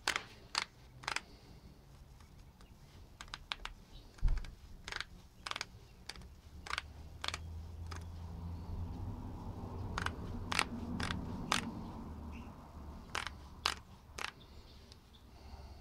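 Sharp clicks of a hand ratchet in short runs, about two a second with pauses between, as a rocker arm bolt is run down toward 24 ft-lb on a Ford 3.0 L pushrod V6. A heavier knock comes about four seconds in.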